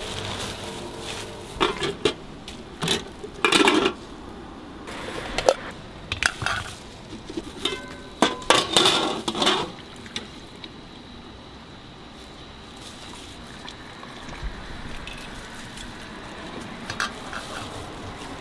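Metal clinks and clatters of a stainless mesh noodle strainer against a metal pot, mixed with plastic crinkling, while noodles are handled and dipped in hot water. The clatter comes in bunches over the first ten seconds or so, then it settles to a quieter background with a few light knocks near the end.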